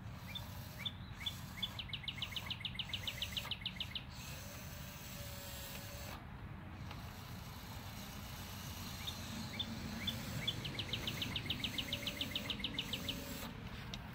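A songbird sings twice, once near the start and again about nine seconds in. Each song is a few separate high notes running into a fast trill of about seven notes a second, over a steady low rumble.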